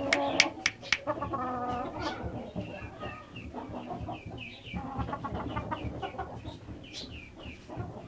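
Chickens clucking, with short high chirping calls through the middle. A quick run of sharp clicks comes in the first second.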